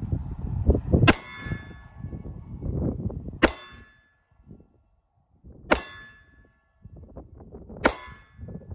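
Four single shots from a Taurus G3c 9mm compact pistol, a little over two seconds apart, each followed by a brief metallic ring.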